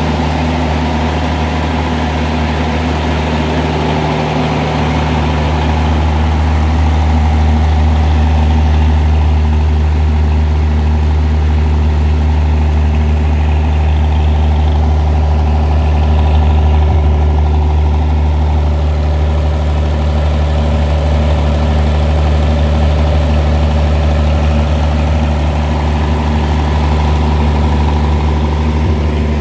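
Arrow A54 natural gas engine running steadily and unloaded during its warm-up, at about 1500 rpm. The low hum grows fuller a few seconds in.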